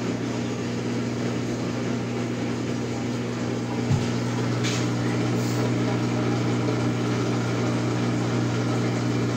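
LG direct-drive front-loading washer's drain pump running steadily, emptying the drum: an even hum made of several steady tones. A single light knock comes about four seconds in.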